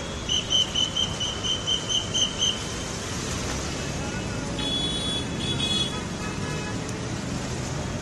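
Road traffic running steadily past. In the first two and a half seconds there is a quick run of about ten short high-pitched beeps. Around the middle come a few horn toots.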